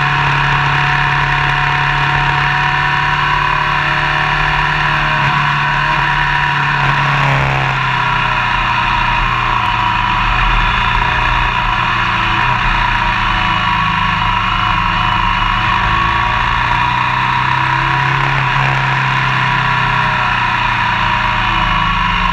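Motorcycle engine running at road speed, with wind and tyre noise, its note shifting briefly twice, about seven and eighteen seconds in.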